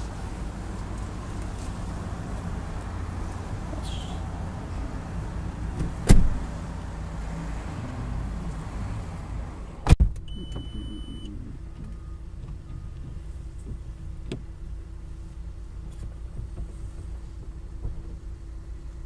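Steady outdoor traffic rumble, broken by two sharp thumps of car doors shutting, about six and ten seconds in. After the second the sound turns quieter and muffled, as from inside the closed car, with a low steady hum and a brief high electronic beep.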